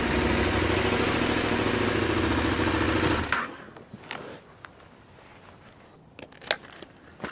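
Adventure motorcycle's engine running steadily, then switched off abruptly about three seconds in. A few faint clicks and scuffs follow.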